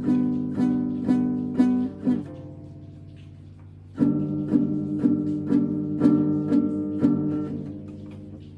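Guitar being picked in a steady rhythm, about two notes a second. It stops for about two seconds while the last note rings out, resumes, and fades out near the end.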